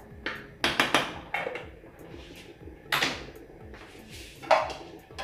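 A spoon knocking and scraping against an aluminium pot of cooking rice, and the pot's aluminium lid clattering back into place: a string of sharp metallic knocks with short ringing tails.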